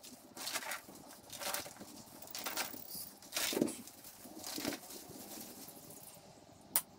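A roll of chicken wire being handled and moved on a mat: a run of short rustling, scraping rattles of the wire mesh about once a second, the loudest about halfway, then a single sharp click near the end.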